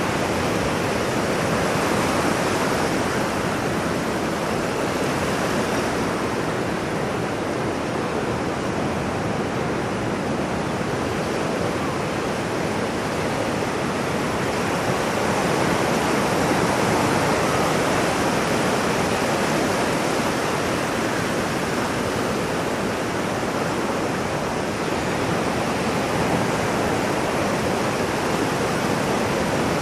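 Ocean waves: a continuous wash of surf that swells slightly about halfway through.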